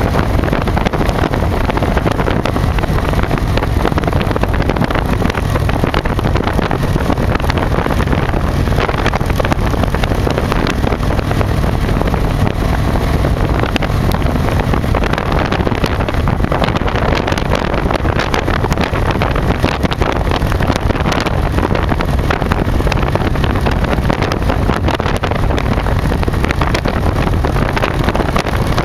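Victory Vision motorcycle cruising at a steady road speed: its V-twin engine runs evenly beneath loud wind rushing over the microphone behind the windshield.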